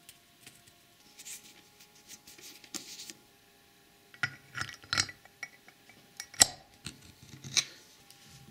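Carburettor parts being fitted back together by hand: scattered light metallic clicks and clinks, the sharpest about six and a half seconds in.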